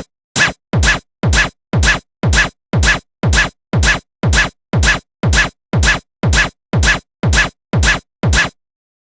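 A railroad-crossing warning alarm, distorted into a bass-heavy electronic beat: sharp strikes about two a second, each with a falling low thump, stopping shortly before the end.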